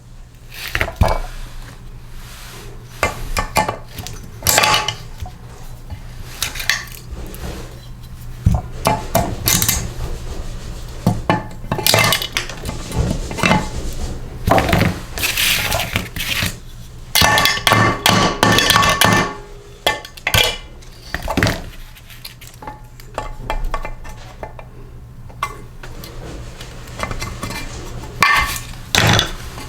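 Hand tools and metal engine parts clinking and clattering irregularly during the teardown of a small Briggs & Stratton lawnmower engine, some knocks ringing briefly.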